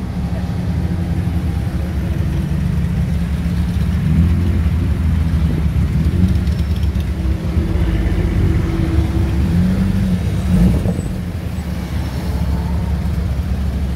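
Low engine rumble from a tuned, twin-piped VW Golf Mk1 rolling past at walking pace, with a motorcycle engine running close behind it. The engine note lifts briefly about four seconds in and again about ten seconds in.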